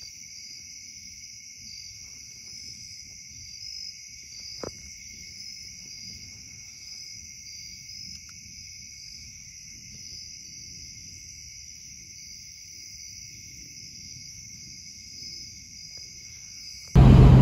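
Night-time chorus of crickets and other insects: steady, unbroken trilling in several pitch bands at once, with one sharp click about four and a half seconds in. Right at the end it cuts suddenly to the much louder road noise of a car driving.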